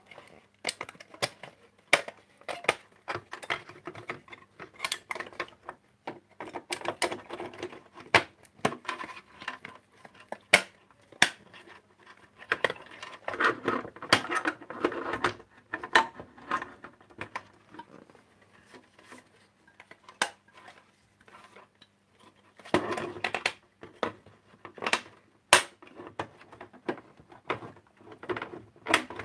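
Irregular clicks, taps and knocks of objects being handled close to the microphone, with stretches of rustling.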